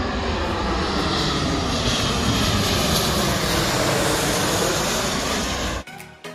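Twin-engine jet airliner flying low overhead on approach to land, a loud steady jet noise that cuts off suddenly near the end.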